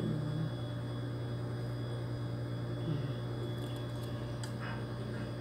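Steady low electrical hum, with a few faint small clicks about three and a half and four and a half seconds in.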